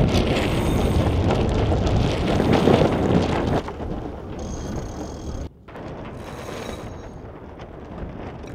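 Wind buffeting the microphone, a loud steady rush of noise, on a sailboat under way. It drops to a lower level about three and a half seconds in and cuts out for a moment a couple of seconds later.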